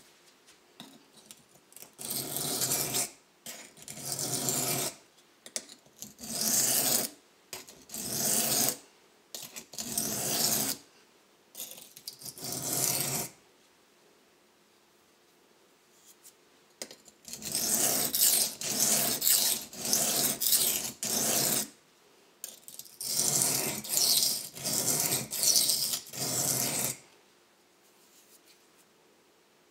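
Knife blade stroked across a bench sharpening stone, scraping once per stroke. About six separate strokes come roughly a second and a half apart, then after a pause of a few seconds two runs of quicker strokes follow.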